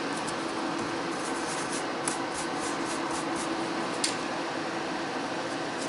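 Nail dust extractor fan running steadily under the perforated table grille, a constant whooshing noise with a low hum. Two light clicks, about two and four seconds in.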